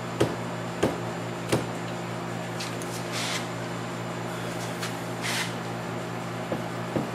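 Light taps on the loosened head of a mini-mill, nudging the spindle round to bring it into tram. Three quick taps come in the first second and a half and two more near the end, with two short hissing noises between, over a steady low hum.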